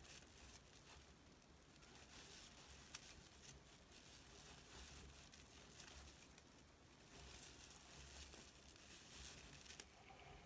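Near silence, with faint rustling and crinkling of paper yarn as a crochet hook works stitches through it.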